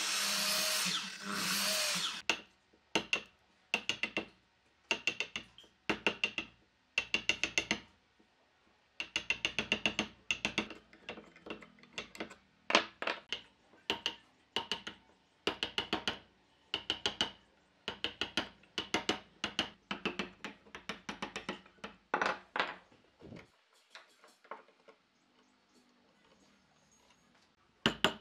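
An electric miter saw runs for about two seconds and stops. It is followed by a wooden mallet driving a chisel in quick runs of sharp, ringing taps, chopping out the waste between saw kerfs in a curved wooden piece. The taps stop a few seconds before the end, and one more strike comes right at the end.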